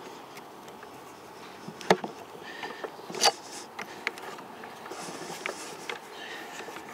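Chainsaw chain rivet spinner being worked by hand to spin over a repair-link rivet: faint metal rubbing with scattered sharp clicks of the tool and chain links, the loudest about two and three seconds in.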